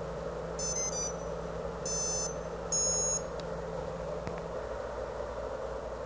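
Brushless ESC running BLHeli firmware sounding its power-up beeps through the motor: three short, high beeps about a second apart, the third a little higher in pitch, as the speed controller starts up on battery power. A steady low hum runs underneath.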